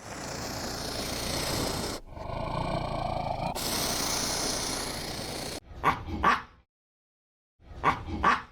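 Animal calls: a dense, noisy stretch with a briefly pitched call in the middle, then short calls in pairs repeating about every two seconds, separated by dead silence.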